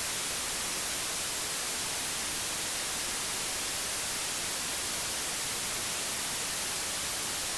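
Steady, even static hiss, brighter in the high end, with no tone or rhythm in it.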